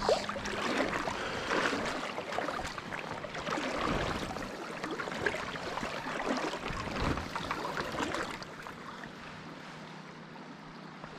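River water rushing and lapping close to the microphone. It is louder for the first eight seconds or so, then settles to a softer, steady flow.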